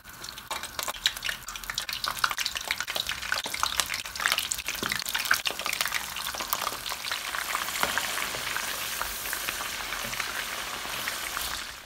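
Meat-stuffed zucchini frying in hot oil in a shallow pan. Sparse crackles and spatters as the pieces go in one after another build within a few seconds into a dense, steady sizzle once the pan is full.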